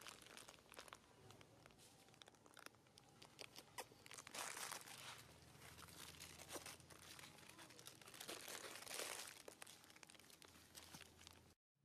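Faint rustling and crackling of dry leaf litter as monkeys walk and forage on it, with irregular small clicks and louder bursts of rustling about four and nine seconds in.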